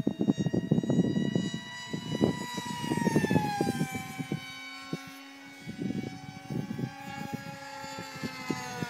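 Electric motor and pusher propeller of a Multiplex FunJet radio-controlled model jet whining in flight, its pitch gliding down about three seconds in as it passes, then holding steady. Low irregular thumps on the microphone come and go under the whine.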